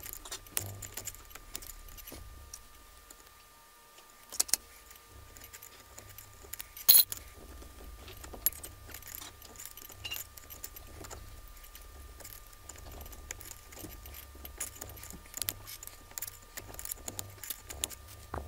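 Small metal tools clicking and rattling, a hex bit and a small quarter-inch wrench, as a bolt is turned and tightened inside the super spacer's steel body. The clicks come irregularly over a faint steady low hum, with one sharper clink about seven seconds in.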